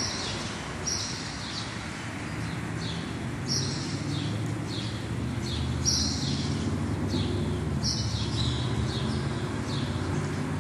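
Birds chirping over and over in short, high, falling calls, over a steady low hum.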